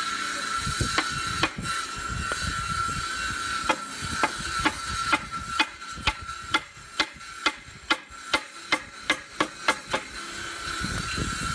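Hammer tapping on wood: a few scattered knocks, then a steady run of sharp taps about two or three a second that stops about ten seconds in, over a steady high-pitched hum.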